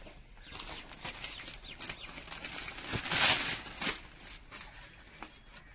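Wet hands rubbing and cleaning the end of a PVC water pipe: irregular rustling and scuffing, with one louder rustle about three seconds in.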